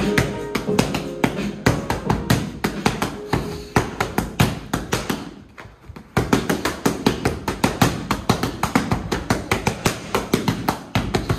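Boxing gloves slapping into focus mitts in rapid combinations, over background music. The punches thin out into a brief lull a little past the middle, then resume.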